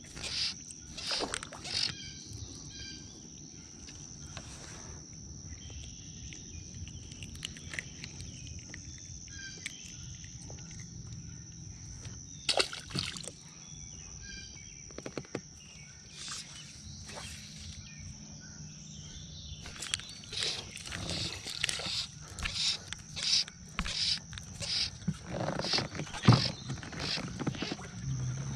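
A steady high-pitched insect buzz hangs over the water. Short scraping rustles of fly line being stripped in by hand run through it, coming thick and fast in the last third.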